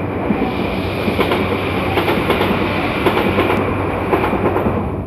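Tokaido Shinkansen N700-series train passing: a steady rush of wheel and air noise peppered with rapid small clicks, dying away near the end.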